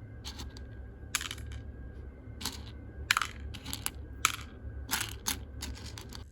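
Sharp, irregular cracks and pops, some in quick pairs, from coffee beans roasting over a wood campfire, over a steady low rumble.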